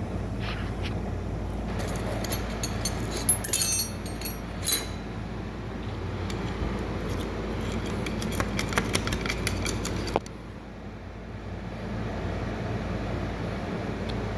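Metal parts being handled: a cluster of sharp clinks and rattles, then lighter ticks a few seconds later, over a steady low hum that drops away suddenly about ten seconds in.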